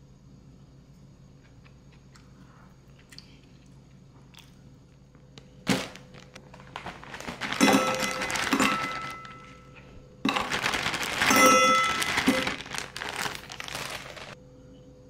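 A sharp click about six seconds in, then crinkling and rustling in two long bouts, the second starting abruptly.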